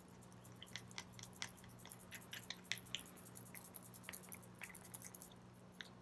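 Stirring epoxy resin with white pigment in a small plastic cup: faint, irregular little clicks and scrapes of the stir stick against the cup.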